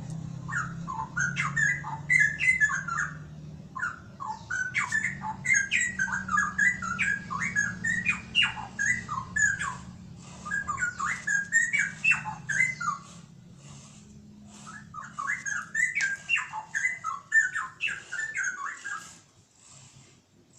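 Straw-headed bulbul (cucak rowo) singing: quick runs of whistled notes in three long bouts with short pauses between, the song stopping near the end.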